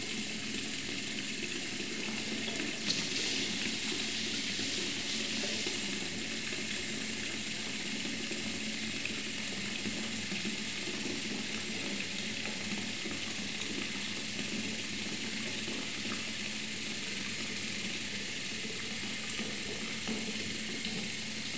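Bathroom sink tap running steadily, water pouring into the basin over a man's head held under it. A little stronger for a few seconds near the start.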